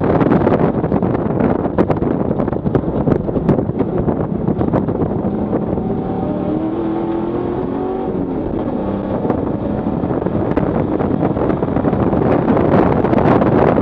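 Engine, wind and road noise inside a stripped, roll-caged track car at high speed. The noise is heavy while the car brakes hard from over 100 mph. About six seconds in, the engine note rises as the car accelerates out of the corner, and the noise builds again near the end.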